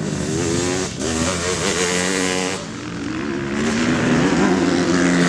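Motocross bike engines revving hard, the pitch climbing and dropping again and again as riders open and close the throttle and shift gears, with a brief break about a second in.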